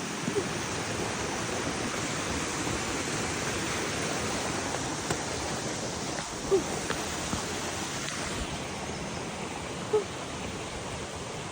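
Steady, even rushing noise, with two brief faint knocks partway through.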